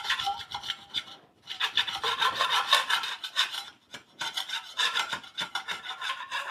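Metal hand scraper rasping along a wall in quick repeated strokes, scraping off an old decorative plaster coating, with two short pauses, about a second in and near four seconds in.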